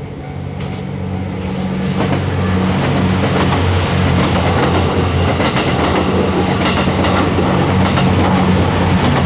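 JR West Kiha 87 series 'Twilight Express Mizukaze' diesel train approaching and passing close by. A steady low engine drone grows louder over the first three seconds, then holds, mixed with the noise of the wheels running on the rails.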